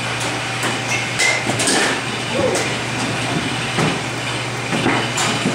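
Batting cage sounds: a softball bat striking pitched balls with sharp, ringing pings, along with knocks, over a steady low hum.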